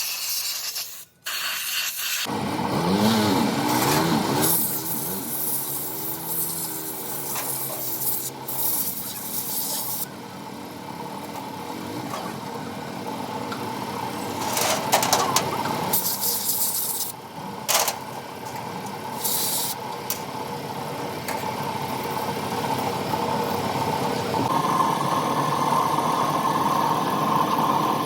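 An engine running, its speed rising and falling for several seconds before it settles into a steady run, with a few sharp knocks around the middle.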